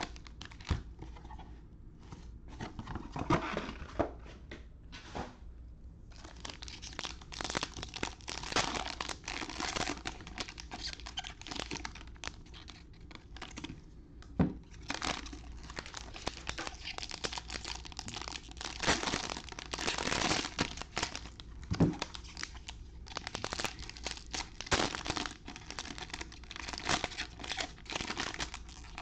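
Plastic wrappers of trading-card packs crinkling and tearing as the packs are handled and opened, sparse at first and then near-continuous from about six seconds in. Two louder knocks stand out midway.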